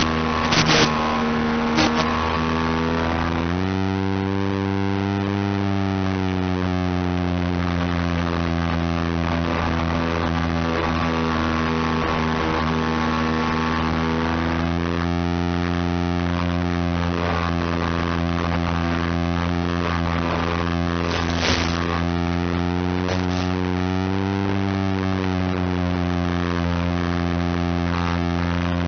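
Steady buzzing drone of a small FPV aircraft's electric motor and propeller, picked up by the onboard video link, rising slightly in pitch a few seconds in and wavering again near the end as the throttle changes. A few short crackles of radio static come near the start and about twenty seconds in.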